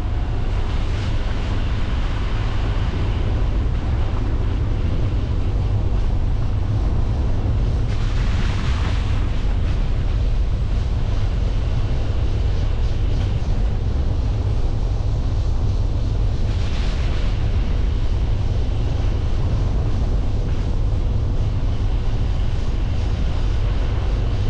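Car driving along a country road: a steady low rumble of road and wind noise, with two brief louder rushing swells about a third and two-thirds of the way through.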